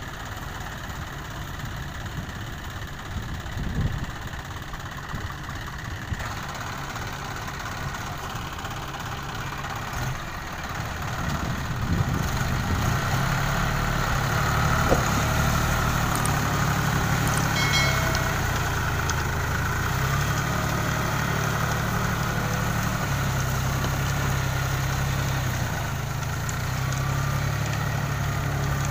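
John Deere 5045D tractor's three-cylinder diesel engine running steadily, then louder from about twelve seconds in as it works to drive the stuck tractor through deep paddy-field mud.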